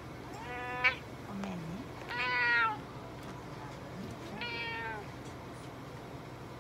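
Cat meowing three times, the middle meow the longest and loudest, with a sharp click at the end of the first.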